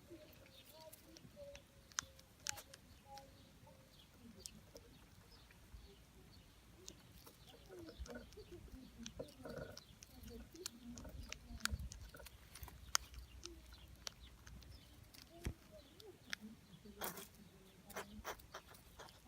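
Baby hedgehog chewing cat food: quiet, irregular sharp crunches and clicks, coming thickest near the end.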